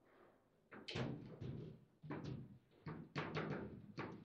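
Table football being played: a run of about ten sharp knocks and clacks from the ball striking the rod figures and the table, beginning after a short pause and coming in quick, uneven succession.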